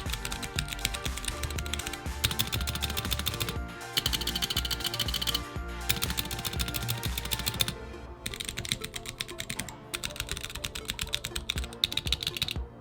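Fast typing on a Womier (GamaKay) K87 mechanical keyboard with Gateron Yellow linear switches: a quick clatter of key presses broken by a few brief pauses. Background music plays underneath.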